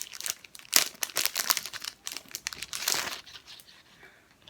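Jewellery packaging crinkling and rustling in irregular bursts as a pouch of earrings is unwrapped by hand, dying away about three and a half seconds in.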